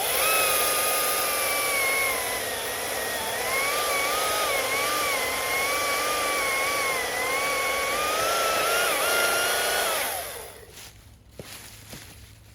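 Husqvarna T540i XP battery chainsaw cutting through a log: a high electric motor whine that wavers and dips in pitch as the chain bites, stopping about ten seconds in.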